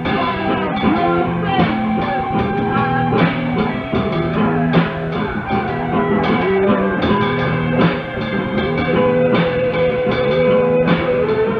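Rock band playing from a digitized cassette recording: a droney bassline with guitar and drums, with regular drum hits throughout and a long held note in the middle register near the end.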